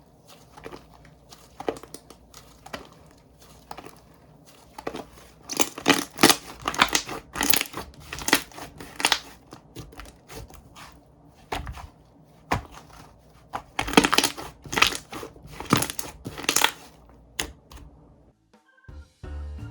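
Slime being squished and stretched by hand, giving irregular clusters of sharp crackles and pops. About a second before the end the crackling stops and keyboard music starts.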